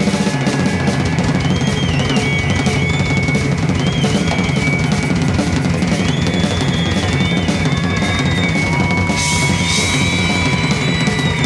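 Rock drum kit played live in a fast, busy drum solo: dense, unbroken strokes on snare, toms and bass drum with rolls.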